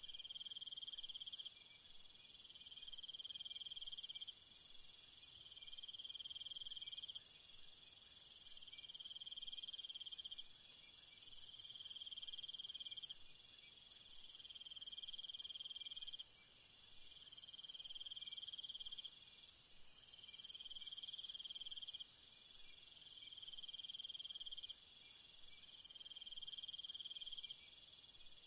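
Night chorus of crickets and other insects: a steady, very high-pitched trill, over a lower trill that comes in repeated spells of about a second and a half, roughly every two seconds.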